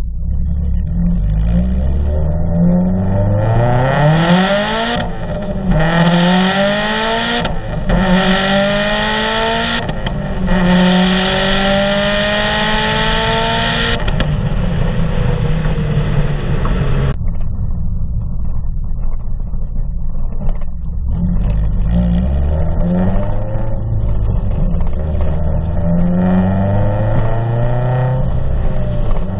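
Exhaust of a 2005 Subaru STi's turbocharged 2.5-litre flat-four, fitted with an Invidia equal-length header, Cobb cat-back and Full-Race EFR 6758 turbo and running on E85, heard close to the tailpipe while driving. The note climbs steeply through four pulls with short breaks for gear changes, then eases off to a steady cruise, and builds again more gently near the end.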